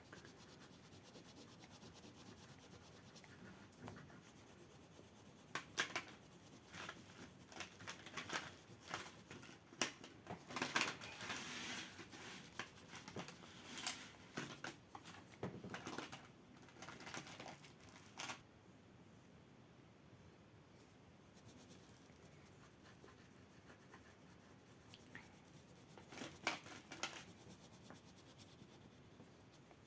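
Pastel strokes scratching and rubbing on paper in quick, uneven runs, busiest for about twelve seconds, then a pause and a short burst near the end.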